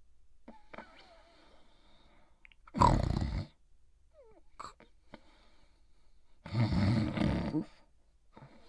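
Cartoon dog character snoring: a short, loud snore about three seconds in and a longer, pulsing snore near the end, with faint whistling breaths between them.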